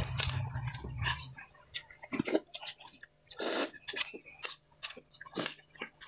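Close-miked chewing of crunchy food: irregular crisp crunches and clicks, with one longer crunch a little past halfway.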